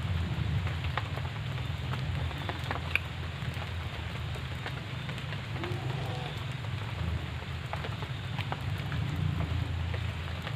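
Steady rain falling, with many scattered drops striking close by.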